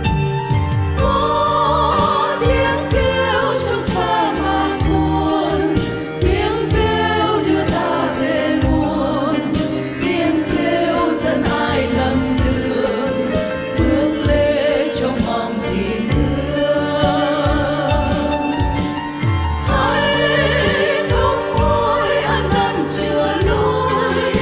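Church choir singing a Vietnamese Catholic hymn with instrumental accompaniment and a steady beat.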